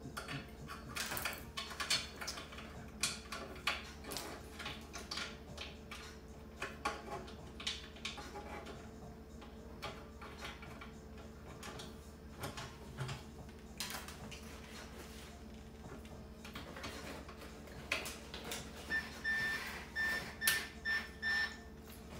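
Scattered light clicks and knocks of metal cart parts being handled as a curved steel handle is fitted to the cart's frame, with a quick series of about six short high-pitched squeaks near the end.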